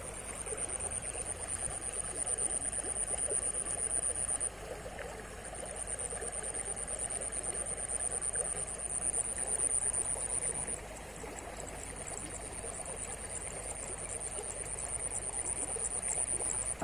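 River water flowing steadily. Over it runs a thin, high-pitched insect buzz in long stretches of several seconds, with two short breaks.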